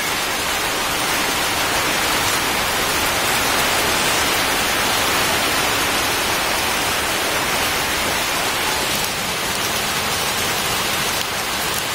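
Heavy rain falling steadily on a corrugated sheet roof and pouring off its edge onto a wet concrete yard.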